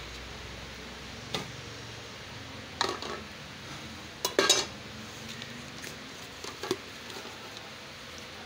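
A plastic cup and loose parts being set into a stainless steel dough-kneader bowl: a few short knocks and clatters against the metal, the loudest a quick double clatter about four and a half seconds in.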